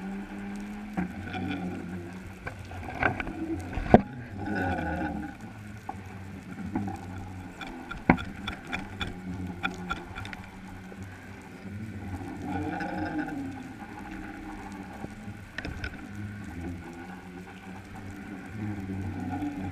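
Underwater sound heard through a submerged camera housing: a steady low hum with wavering, creaking tones that come and go. There are scattered sharp clicks and knocks, the loudest just before four seconds in and again at about eight seconds.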